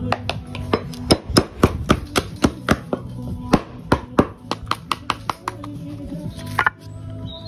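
Slater's hammer striking the edge of a thick Sizun roofing slate held over an iron slater's stake, trimming it with quick, even blows, about four or five a second, that thin out near the end.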